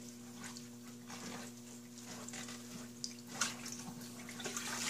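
Faint drips and soft wet handling as soaked alpaca fleece in mesh bags is rolled up in a stainless steel sink, with one small knock about three and a half seconds in. A steady low hum runs underneath.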